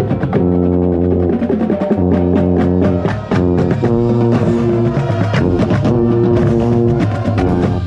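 Drum and bugle corps hornline and battery playing: loud brass chords held a second or so at a time and broken by short gaps, over rapid drum strokes, with the contrabass bugles heavy and close at the low end.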